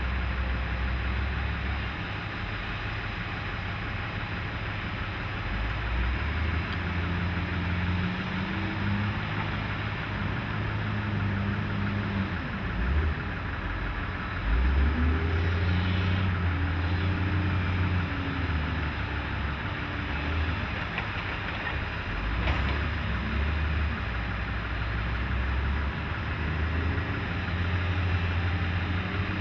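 Caterpillar wheel loader's diesel engine working as the loader pushes a pile of sand with its bucket, the engine speed rising and falling several times under load, with other heavy equipment running. One sharp knock a little past the middle.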